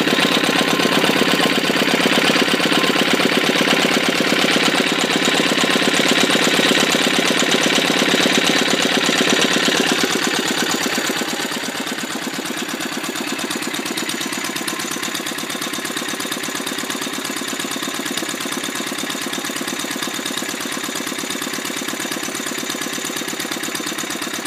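Wolseley WD8 air-cooled single-cylinder stationary engine running steadily at a slow even beat, revived after its points and plug were cleaned. It turns a little quieter from about eleven seconds in.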